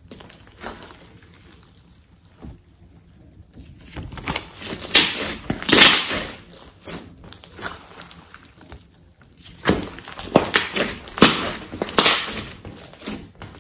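Hands kneading and pressing a thick mass of slime, making wet squishes and crackly clicks. It is quiet for the first few seconds, louder in the middle, and busy again near the end.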